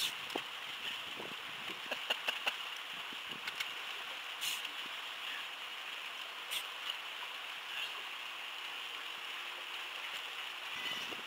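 Water lapping and gurgling against a small boat's hull, with scattered light clicks and knocks.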